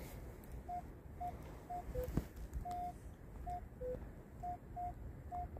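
Metal detector giving short target beeps as it sweeps over a target, about a dozen clipped tones at one mid pitch with two lower tones mixed in and one longer beep a little under three seconds in. This is a fairly solid signal, read as a target ID of 21.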